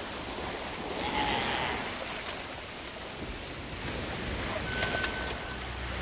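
Sea surf churning and waves washing, an even rush of water. Low music begins to come in near the end.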